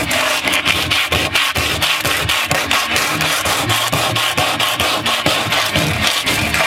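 Sandpaper held in the fingers rubbing back and forth over the wooden kayak hull: hand sanding in quick, repeated scratchy strokes.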